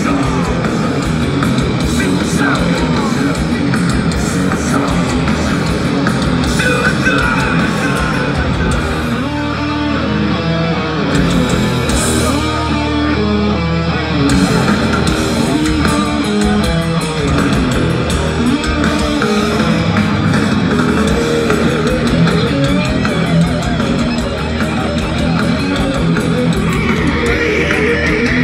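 Live heavy metal band played loud over a festival PA, heard from within the crowd: electric guitars, bass and drums. About ten seconds in, the drums stop for several seconds under a held low note and a guitar line, then come back in.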